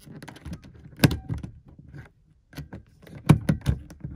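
Scattered small clicks and knocks of hands working at a car's plastic overhead dome light housing while the old bulb is being worked loose. The sharpest click comes about a second in, and two louder knocks follow a little after three seconds.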